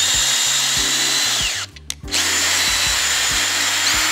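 Cordless drill spinning a threaded rod into a hardwood block, in two runs with a short pause between them. The motor whine slows and drops in pitch near the end of the first run; the second run is higher-pitched.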